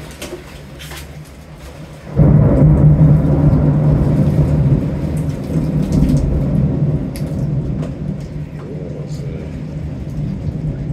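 A thunderclap breaks in suddenly about two seconds in and rolls on as a long, low rumble that slowly fades, with rain falling throughout.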